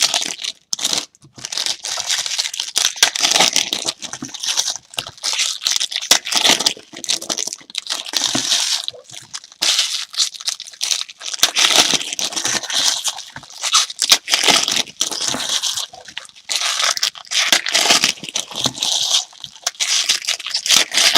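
Plastic and foil wrapping crinkling and tearing in irregular bursts as trading card packs are handled and opened.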